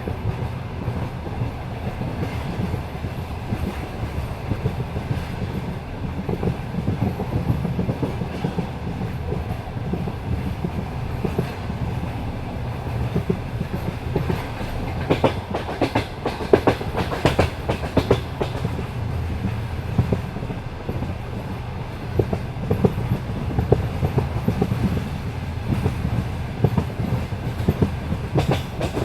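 Passenger coach wheels running over rail joints: a steady rumble with clickety-clack, and a denser run of clacks about halfway through.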